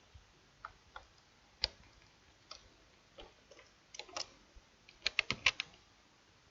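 Scattered clicks of a computer keyboard and mouse, singly at first, then a quick run of about five clicks a little after five seconds in.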